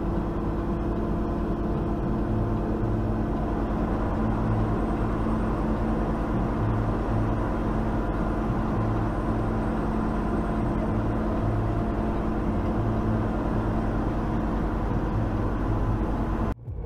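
Semi-truck's diesel engine running steadily at crawling speed, heard from inside the cab as a low, even hum. It cuts out abruptly just before the end.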